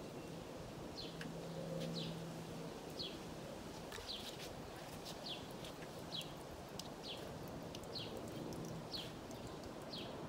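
A bird chirping over and over, short high downward chirps about once a second, over faint outdoor background noise.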